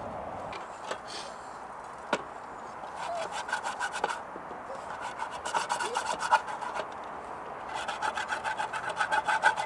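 Dishes being scrubbed by hand in a wash basin: runs of quick back-and-forth rubbing strokes starting about three seconds in, with a few sharp clinks of utensils before them.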